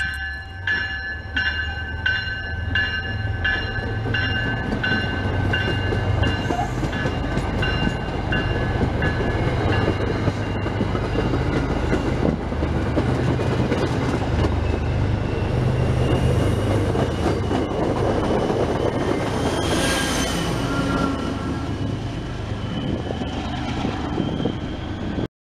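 MBTA commuter rail train rolling past a station platform: a steady rumble of coaches with wheel clatter on the rails. A bell rings about one and a half strokes a second at the start and fades out over the first ten seconds, and a brief higher-pitched tone sounds about twenty seconds in.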